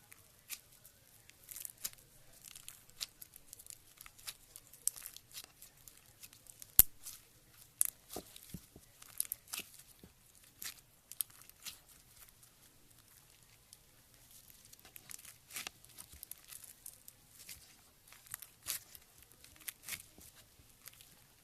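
Slime being squeezed and stretched by hand, giving irregular sticky crackles, clicks and pops, one sharper pop about seven seconds in.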